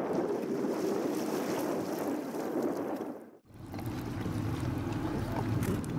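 Steady outdoor rush of wind on the microphone over moving floodwater. It breaks off briefly about three and a half seconds in, then comes back deeper and more rumbling.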